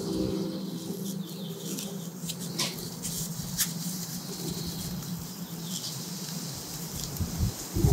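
Paper towel crinkling and rustling, with scratchy rubbing, as gloved fingers press a rubber gasket into the groove of a new engine water pump. A steady low hum runs underneath for about the first five seconds, then fades.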